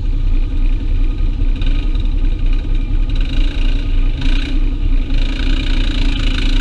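Side-by-side UTV engine running steadily under way, a continuous, even engine noise with no let-up.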